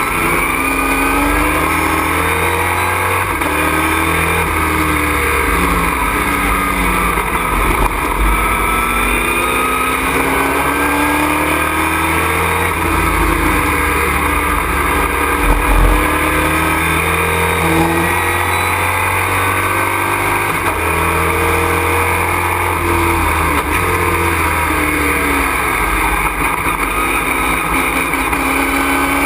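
Race truck's engine heard from inside the cockpit, loud and constant. Its pitch climbs and drops again and again as it accelerates, shifts and slows for corners.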